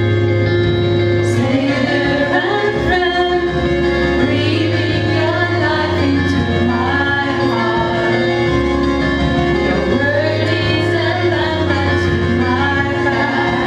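Two women singing a slow praise-and-worship song over sustained keyboard chords, with the bass note changing about every one and a half seconds.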